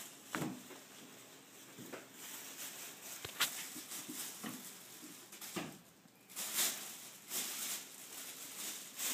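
Thin plastic bag crinkling and rustling in short bursts as kittens paw and climb at it, with scattered light taps and knocks; the rustling is heaviest in the last few seconds.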